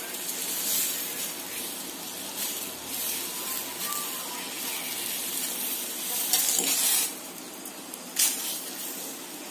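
Spinach leaves being blanched in a steel bowl of hot water on a gas stove: a steady hiss with a steel spoon stirring through the leaves and water. A few louder splashes come near the end as the leaves are lifted out dripping.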